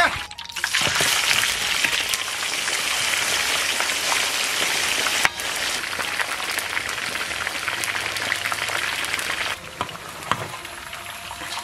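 Water-soaked sheep hooves deep-frying in a wok of hot oil: a dense, spattering sizzle that turns quieter near the end. This is the frying after the cold-water soak that blisters the skin crisp.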